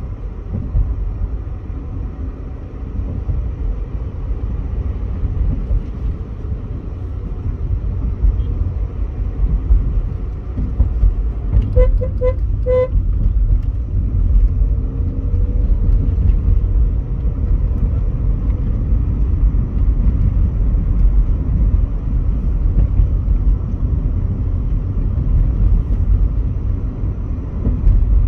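Volkswagen Polo GT heard from inside its cabin while driving, a steady low rumble of engine and road noise. About 12 seconds in, a vehicle horn gives three or four short toots.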